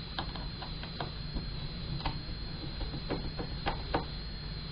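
Small Phillips screwdriver working the tiny corner screws out of a laptop's LCD panel: light, irregular clicks and ticks of metal on metal.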